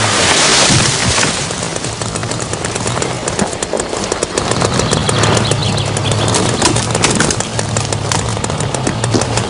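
Forest logging noise: a burst of rushing noise in the first second, then a dense crackle of sharp clicks over a forestry machine's engine, whose steady hum grows from about halfway through.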